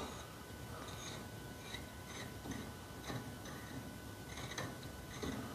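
A few faint, irregular metallic ticks and clicks as an open-end wrench turns a choke-thread tap in a shotgun barrel's muzzle.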